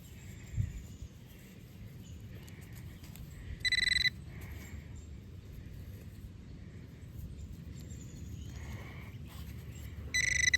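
Metal detector beeping twice, each a short steady high beep of about half a second, some six seconds apart, over low rumbling handling noise: the signal that the metal target is in the handful of dug dirt being checked.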